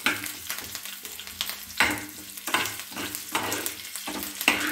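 Mustard seeds, green chillies and curry leaves sizzling in hot oil in a small steel pan, with a steel spoon scraping against the pan about once a second as the tempering is stirred.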